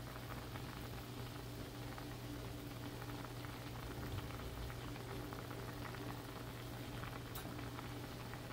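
Saucepan of baking-soda water at a steady rolling boil, bubbling and crackling softly around blanching pretzel dough, with one faint click about seven seconds in.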